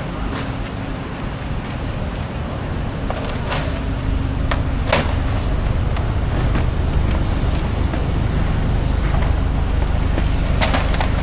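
Steady low rumble of a motor vehicle running, growing a little louder, with an on-and-off hum and a few sharp knocks.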